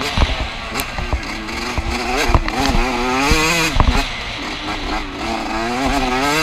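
Yamaha YZ125's 125 cc single-cylinder two-stroke motocross engine revving hard on a lap, its pitch climbing under throttle and dropping several times as the rider shifts and rolls off. A few sharp knocks from the bike cut through.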